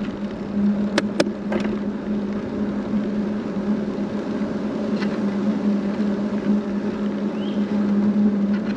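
Vehicle moving slowly with a steady low hum, plus two sharp clicks about a second in and a fainter one about five seconds in.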